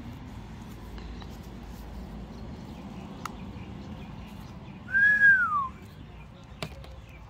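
A single clear whistled note about five seconds in, lasting under a second, rising slightly and then sliding down in pitch, standing well above a low steady background; a couple of faint clicks come before and after it.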